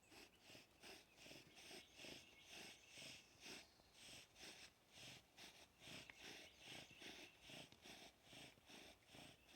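Bow drill being worked: a yucca spindle rasping in the socket of a cedar fireboard in quick, even strokes, about two a second. The spindle is burning in the socket before the real attempt at an ember.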